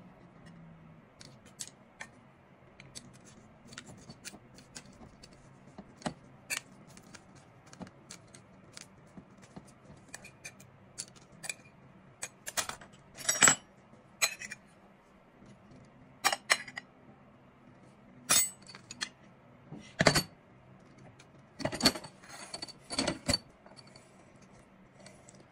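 Chopsticks clicking on a ceramic plate and spices dropping into a stainless-steel pressure vessel, as scattered light taps. In the second half come several louder clinks and knocks of metal and crockery.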